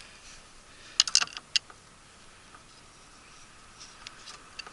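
Small metal clicks and taps from tools and parts being handled at the furnace's gas valve while its regulator cap is taken off: a quick cluster of clicks about a second in, then a few faint ticks near the end.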